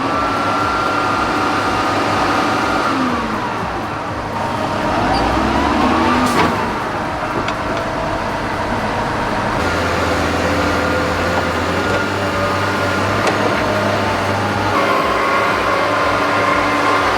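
Heavy diesel machinery engines running under load, their pitch rising and falling as they rev, with a sharp knock about six seconds in.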